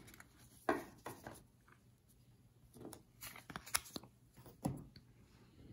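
Baseball cards and wrapped card packs being handled on a table: several short rustles and light taps.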